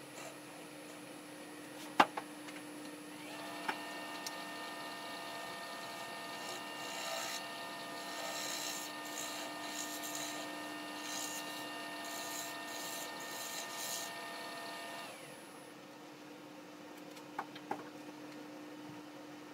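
Wood lathe spinning a small black walnut bowl while a bowl gouge cuts it: a steady hum with a whine of several steady tones coming in about four seconds in. The whine dies away about fifteen seconds in as the lathe stops, followed by a few small clicks; a single sharp knock sounds about two seconds in.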